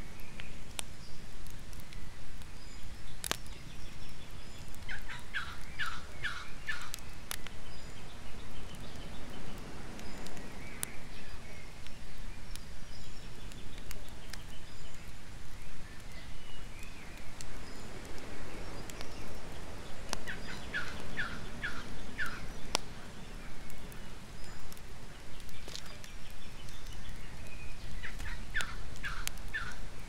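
Wood campfire crackling with occasional sharp pops, over a steady low wash of surf. An animal calls three times, each time a quick series of about five short notes lasting two to three seconds.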